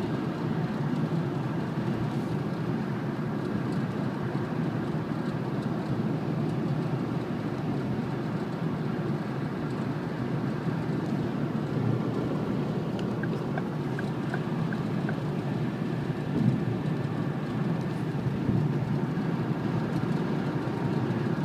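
Cabin noise of a Ford Focus Mk2 at motorway speed: a steady drone of road and engine noise, with a few faint quick ticks just past the middle and one knock a little later. The owner hears a rattle from under the passenger-side dash whenever the car goes above 60 mph.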